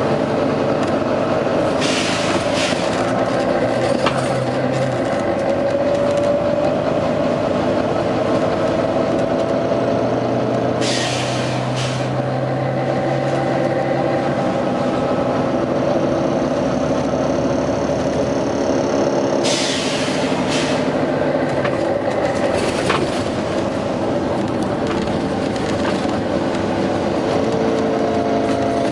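Volvo B9TL double-decker bus running under way, its diesel engine and driveline droning with a pitch that rises and falls as it works through the gears. Several short, sharp hisses of air from the bus's air system cut in over it, one every few seconds.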